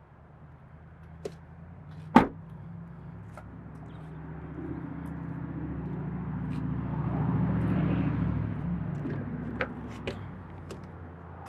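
A motor vehicle passing by, its engine and road noise growing louder to a peak and then fading away, with a sharp knock about two seconds in.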